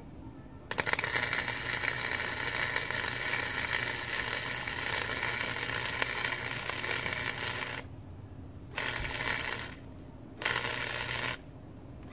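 Wire-feed (MIG) welder arc crackling as a bead is laid on steel angle iron: one long run of about seven seconds, then two short bursts of about a second each.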